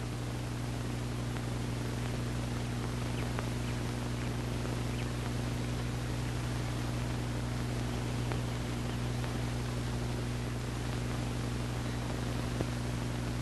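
Steady low hum with hiss, and a few faint scattered clicks as a keyboard is typed on.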